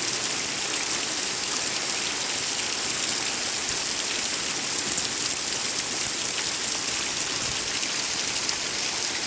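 Very heavy rain pouring down, a steady even hiss of rain on surfaces.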